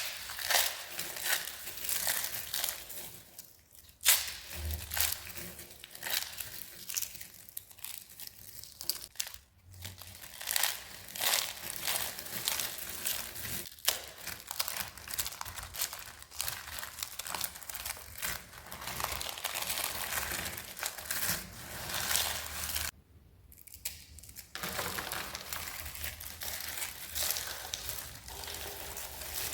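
Dry, crispy soap being crushed and crunched up close, a dense run of crisp crackling and crumbling. Short breaks come about four and ten seconds in, with a longer pause a little past two-thirds of the way through.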